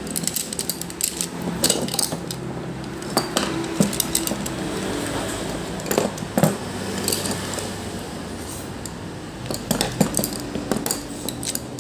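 Steel-shanked go-through screwdrivers with wooden handles being picked up and dropped onto a wooden table, making irregular clinks of metal on metal and knocks of handles on wood in small clusters.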